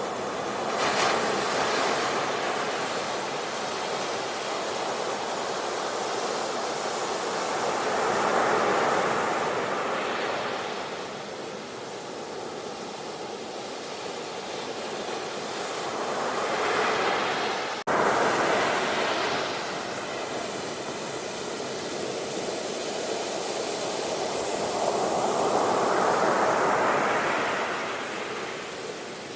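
Sea waves rushing in and washing back, swelling and fading about every eight to nine seconds, with a brief sudden dropout about two-thirds of the way through.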